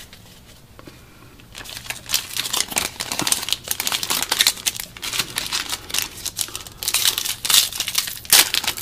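After a quiet second and a half, the foil wrapper of a football trading card pack crinkles and crackles as hands open it.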